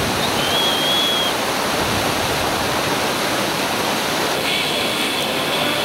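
Steady rushing of a mountain river flowing past, with a short high whistle about half a second in.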